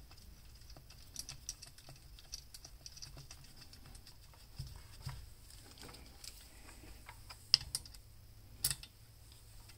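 Small metal clicks and taps of screws being started by hand into a Senix four-stroke chainsaw's stamped-steel valve cover, then turned with an L-shaped hex key, with a few sharper clicks near the end.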